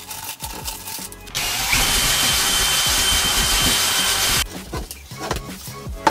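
Cordless DeWalt drill with a mixing paddle running steadily as it mixes grout in a plastic bucket, with a steady whine. It starts about a second in and stops about a second and a half before the end.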